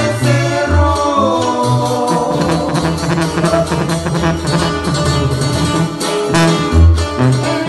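A live regional Mexican band playing a corrido: a sousaphone plays the bass line in strong, separate notes under guitar chords and melody.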